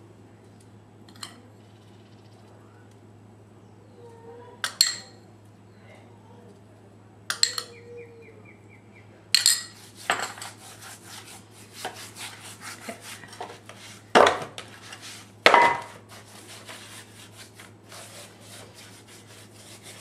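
A spoon clinks sharply a few times as seasoning is sprinkled from a small glass. Then, about halfway through, hands rub and pat a salt, cumin and pepper rub into raw beef ribs in a stainless steel pan, a dense run of scraping and crackling with a couple of louder knocks. A low steady hum sits underneath.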